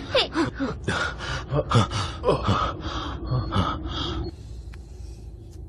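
People gasping and panting hard for breath, about three quick voiced breaths a second, winded from running; the panting stops about four seconds in.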